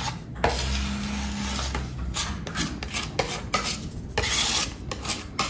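Putty knife spreading and scraping marble-based filler paste over a kitchen cabinet front: one long stroke, then a run of short scrapes.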